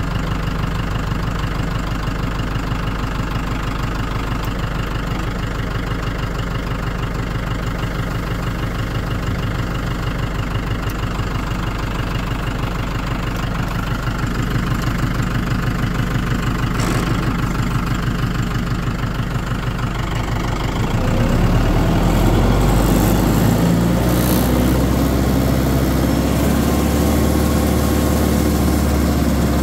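Tractor engine running at a steady idle, then revving up and running louder about two-thirds of the way through.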